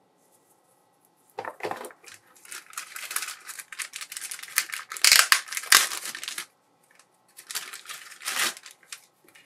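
Clear plastic bag crinkling as gloved hands open it to take out a white plastic figure base. It starts about a second and a half in, grows loudest about halfway through, and has a second bout of crinkling near the end.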